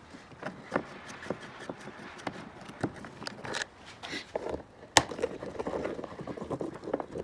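Phillips screwdriver backing out the screws of a plastic truck door panel: a string of small, irregular clicks and scrapes, with one sharper click about five seconds in.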